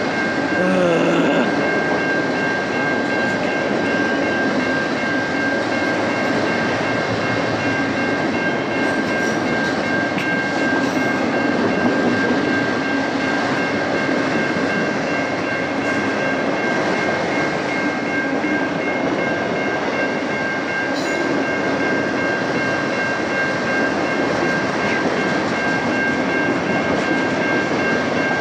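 Freight train of autorack cars rolling steadily past, a continuous rumble of wheels on rail with a steady high-pitched tone held over it.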